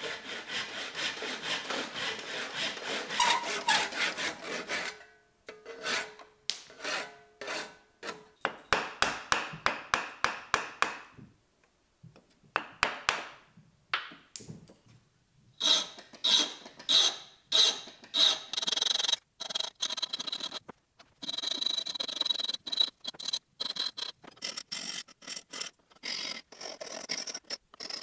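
A hand saw cutting through a maple block held in a steel bench vise, then a rasp shaping the wood, in runs of quick back-and-forth strokes broken by short pauses.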